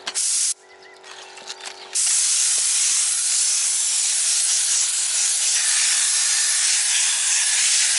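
Spray gun spraying a liquid coating under pressure: a short blast of hissing spray, then, about a second and a half later, a steady strong spray hiss that keeps going. The spray is coming out too strongly and needs adjusting.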